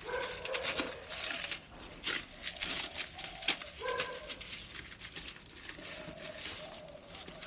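Short whining animal cries near the start and again about four seconds in, over a run of quick rustling and clicking handling noises.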